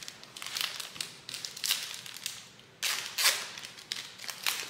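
Foil trading-card pack wrapper crinkling as it is handled and torn open, with a louder burst of crinkling about three seconds in.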